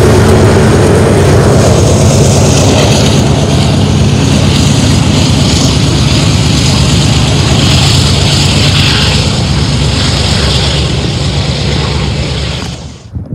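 Union Pacific diesel locomotives of a freight train passing close, a loud, steady low engine rumble mixed with the noise of wheels on the rails. It cuts off suddenly near the end.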